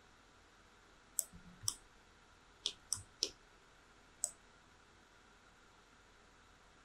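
About six sharp clicks of a computer mouse, a few in quick succession, between about one and four and a half seconds in.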